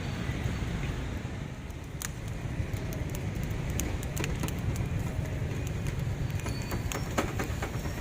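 A steady low rumble with scattered light clicks and taps, busier in the second half.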